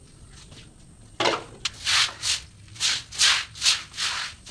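A broom scrubbing wet cement slurry across a concrete floor bed in quick rhythmic strokes, about two or three a second, starting about a second in. This is the slurry coat being spread before the marble is laid.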